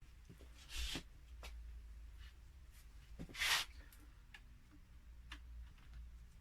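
X-Acto hobby knife blade scraping and scoring along the seam of a laptop battery pack's plastic case: faint scratching with two louder scraping strokes, about a second and three and a half seconds in, and light ticks in between.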